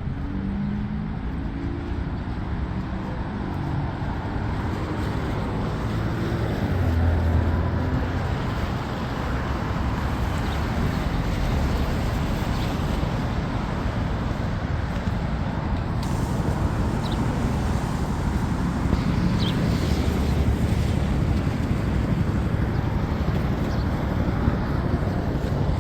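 Steady city street noise of road traffic, with a louder vehicle passing about seven seconds in and another near the end.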